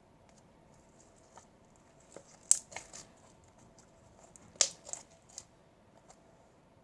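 Sticky slime being pulled and handled: soft crackles with a few sharp pops, the two loudest about two and a half and four and a half seconds in.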